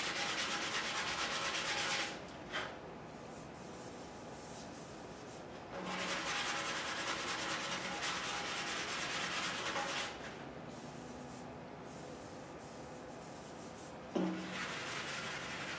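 A sanding block with sandpaper is rubbed by hand over a Suzuki GS550's painted steel gas tank in quick back-and-forth strokes, feathering away the edge left by old pinstriping. The sanding is loud for the first two seconds and again from about six to ten seconds in, with softer rubbing between.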